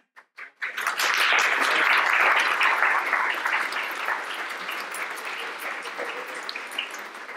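Audience applauding: a few scattered claps, then full applause within the first second that slowly thins out toward the end.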